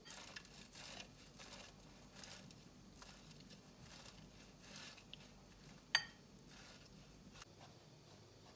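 Rustling and crinkling handling noises, like paper or packaging being handled, with one sharp light clink that rings briefly about six seconds in.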